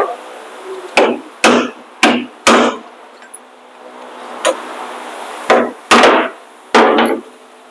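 Hammer blows on a seized part of a truck's rear brake assembly, about nine sharp strikes in irregular groups, knocking the stuck part loose.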